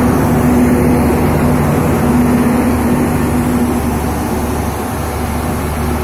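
Diesel generator set in an Indian Railways LHB power car running steadily: a constant engine hum with a deep, even drone.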